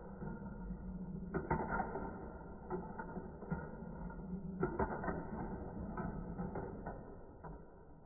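Marbles rolling along a plastic Gravitrax marble run: a continuous rolling rumble broken by irregular clicks and clacks as the marbles hit and drop through track pieces, busiest about one and a half seconds in and again around five seconds.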